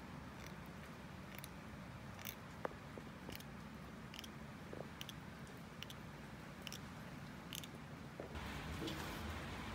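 A cat chewing raw fish, with short, crisp crunching clicks about once a second. A steady hiss rises near the end.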